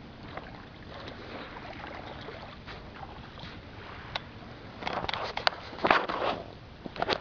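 Footsteps in flip-flops crunching on a gravel path over a steady low rumble of the handheld camera being handled. The crunches grow louder and come thick and fast from about five seconds in.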